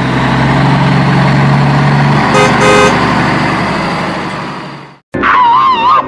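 Car sound effect: an engine running with a steady hum and two short horn toots about two and a half seconds in, fading out at about five seconds. After a brief gap, a wavering, warbling high-pitched tone begins near the end.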